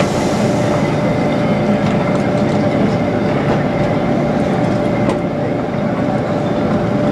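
Passenger coaches of a heritage train rolling past on the track: a steady rumble of wheels on rail, with a few sharp clicks over rail joints and a steady tone running underneath.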